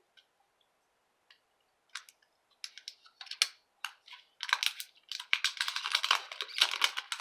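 Plastic packaging crinkling and crackling as a new smartphone is taken out of its box. It starts with a few scattered crackles and becomes dense, continuous rustling from about halfway through.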